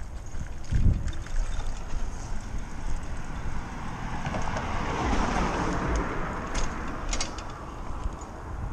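Wind buffeting the microphone of a camera on a moving Lime electric hire bike, over a rumble of tyres on paving and tarmac. There is a swell of noise about halfway through and a few sharp rattling clicks soon after.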